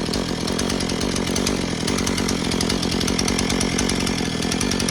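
Two-stroke gasoline chainsaw engine running steadily at an even speed after repair.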